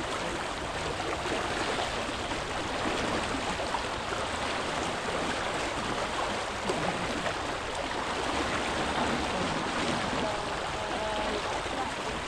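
Muddy pond water sloshing and splashing steadily as a wader hauls in a cast net and gathers it by hand.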